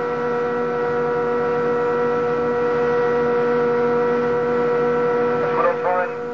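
Steady, even-pitched hum of a ship's machinery on board the vessel, holding one drone with overtones throughout. A voice starts near the end.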